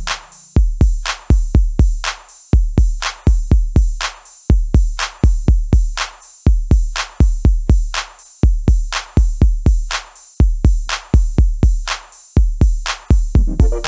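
Electronic drum-machine beat with no melody: deep, drawn-out bass kicks and sharp hits in groups, the pattern repeating about every two seconds.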